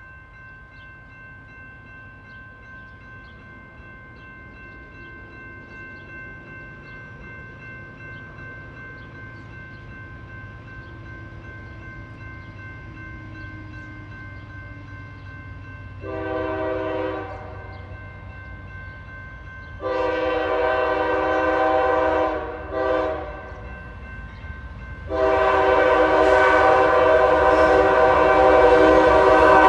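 Multi-note horn of an approaching CSX freight train's lead diesel locomotive sounding the grade-crossing signal: two long blasts, one short, then a final long one starting about five seconds before the end. Under it the low rumble of the diesels grows steadily louder as the train nears.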